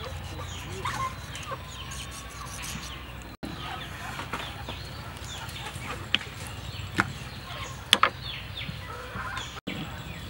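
Chickens clucking in the background, with a few sharp taps about two-thirds of the way through as the fish is cleaned on a wooden cutting board.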